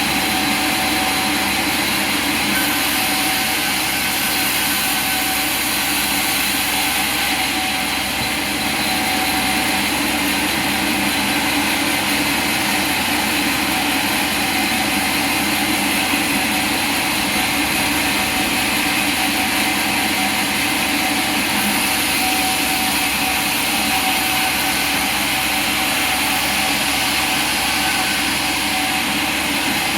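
Sawmill machinery running with a steady, continuous mechanical whir and hum, a few steady tones over a broad noise.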